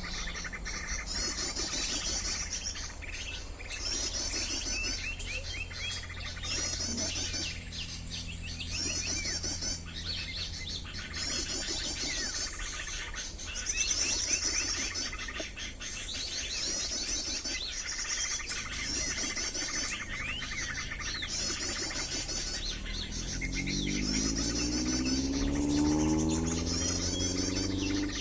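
Birds calling in high, rapid trilling chirps that repeat about every second or so, over a steady low hum. Near the end a lower droning tone swells and rises in pitch.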